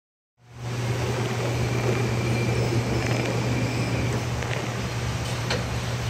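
Warehouse forklift running with a steady low hum and a constant hiss as it comes down, with a few faint ticks in the second half.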